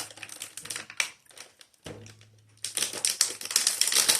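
Rapid crackling and clicking of a plastic pastry wrapper being handled, dying down for about a second and a half in the middle, then picking up again.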